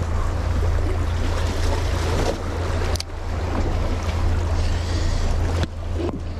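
Steady wind rushing over the microphone with sea waves washing, a constant low rumble under it; a single sharp click about three seconds in.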